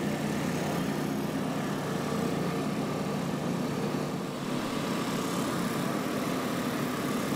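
Superbike engines idling steadily, with a brief slight dip in level about four seconds in.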